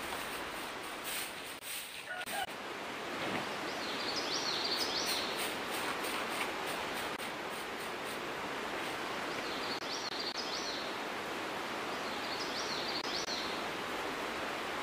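Steady outdoor background hiss, with a small bird calling three short, high chirping phrases about four, ten and thirteen seconds in. A few light ticks come in the first two seconds.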